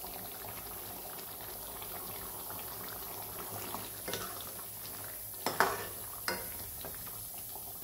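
Mutton curry simmering and bubbling in a metal pot with a steady hiss. It is stirred with a metal ladle, which knocks against the pot a few times in the second half.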